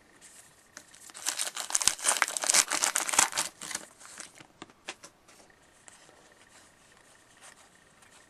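Hockey card pack wrapper being torn open and crinkled by hand: a dense crackling for about three seconds, trailing off into a few scattered crackles.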